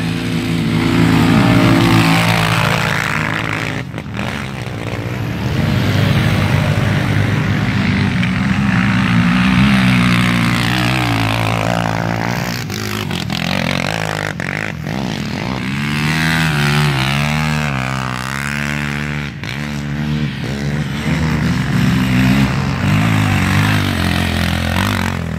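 Quad ATV engines revving hard at full throttle as they climb a steep dirt hill. One passes close about two-thirds of the way through, its pitch swinging up and down.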